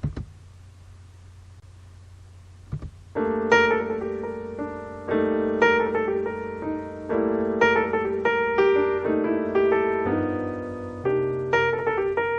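Piano music with a steady, repeating chord pattern, starting about three seconds in after a low hum and a single click.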